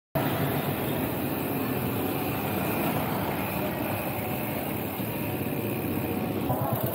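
Wind rumbling on a handlebar camera's microphone while cycling through city street traffic, with the noise of the road and nearby cars; it cuts in suddenly at the start.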